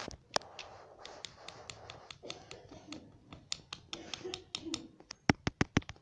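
Indian ringneck parrot's beak tapping and pecking at a small mirror: scattered sharp clicks with light scraping, then a quick run of about six loud taps near the end.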